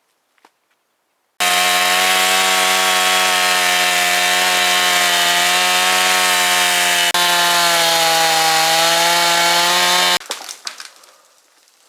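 Gas chainsaw running at high throttle, cutting into a dead tree trunk. It starts suddenly about a second and a half in, its pitch sags a little under load in the second half, and it cuts off suddenly near the end, leaving some faint clatter.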